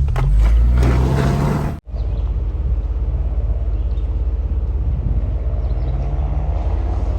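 Ford Bronco's engine working under load on an off-road climb, its pitch rising and falling. It cuts out abruptly for an instant about two seconds in, then runs steadily at low revs with a fast, even pulse.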